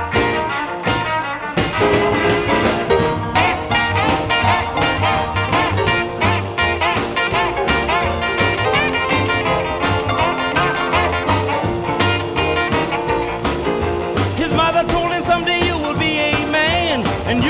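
Swing-style band music with brass, played back from a cassette on a Technics RS-M205 deck and taken straight from the deck's output.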